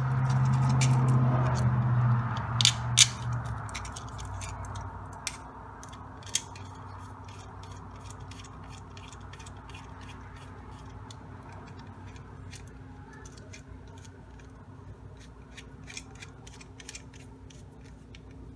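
Hands handling and fitting small 3D printed plastic parts and a stepper motor, with rubbing at first, then a hex screwdriver turning small M3 cap screws: many light, irregular clicks and ticks over a low steady hum.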